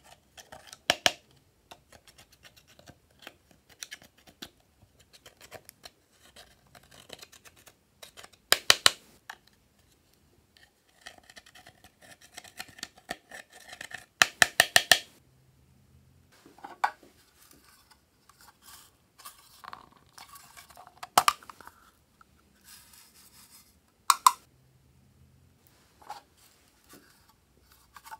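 Thin metal tool scraping and picking eyeshadow powder out of the pans of a plastic makeup palette: short runs of quick scratchy strokes and taps every few seconds, the loudest a fast string of strokes about halfway through.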